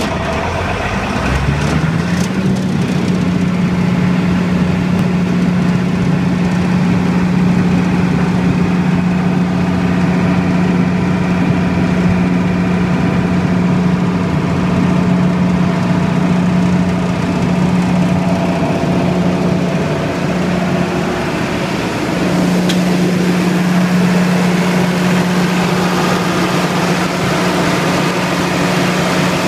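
Multiquip DCA180SSV portable generator set's diesel engine running at generating speed. It rises in speed over the first couple of seconds, then runs steadily, dipping slightly around twenty seconds in.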